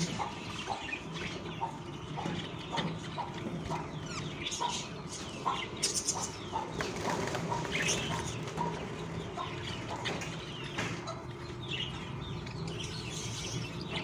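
Budgerigar chicks in the nest chirping and squeaking in short, scattered calls, with scuffling as they shift about, over a low steady hum.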